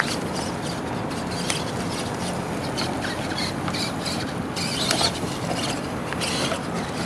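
R/C monster truck driving on grass and pavement, its motors and drivetrain whining in short high-pitched bursts as the throttle comes on and off, over a steady hiss.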